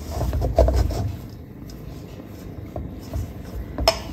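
A hand squeezing and turning a crumbly jaggery, sesame and peanut mixture in a steel kadai, giving uneven soft thumps that are strongest in the first second. There is a single sharp click near the end.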